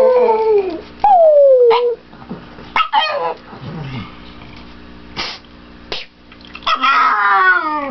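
Pug howling happily in greeting: three long drawn-out cries, each falling in pitch, with a few short yelps between them.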